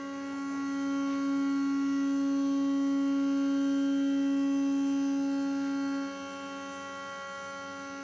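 CNC router spindle whining at a steady high pitch as its end mill cuts the edge of a POM (acetal) plastic plate with a small step-over. It turns quieter about six seconds in.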